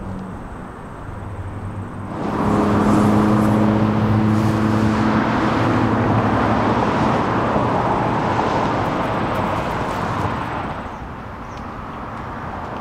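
A motor vehicle passing close by: engine and road noise rise suddenly about two seconds in, hold for several seconds and fade away near the end, over a low steady hum.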